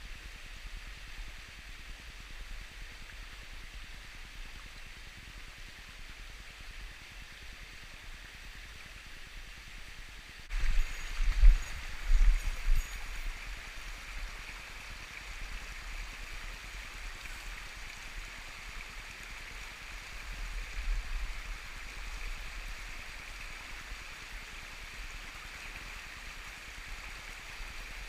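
Mountain stream rushing over rocks: a steady hiss that suddenly gets louder and brighter about ten seconds in. Low bumps on the microphone come just after the change and again about two-thirds of the way through.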